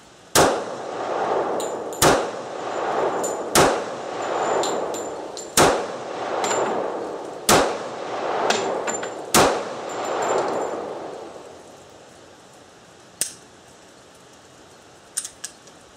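Six pistol shots from a compact 1911 A1 (officer's model size), spaced about one and a half to two seconds apart, each followed by a second-long echo under the covered range roof. A few quieter sharp clicks come near the end.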